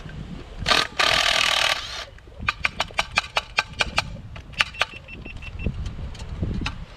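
Ryobi 18-volt cordless impact wrench run in a short blip and then for just under a second, undoing a 17 mm blade nut on a Honda mower's blade disc. After it, a string of light metallic clicks, about four or five a second, as the loosened parts are handled.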